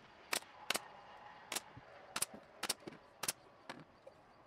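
Pneumatic brad nailer firing brad nails into a cedar frame: about six sharp shots at uneven intervals over roughly three seconds, with a fainter one after them.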